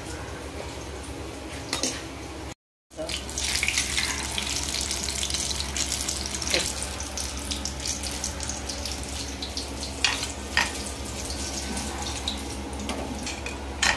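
Battered green chillies deep-frying in hot oil in a kadai: a dense crackling sizzle that starts after a short cut about three seconds in, with a few sharp clicks.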